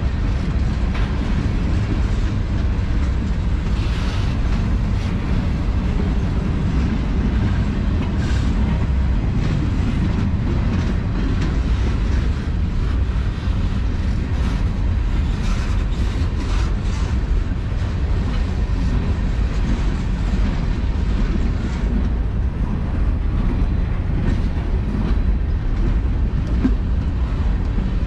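Freight cars of a long manifest train rolling slowly past at trackside: a steady low rumble of steel wheels on rail, with scattered clicks and clacks as the wheels go by.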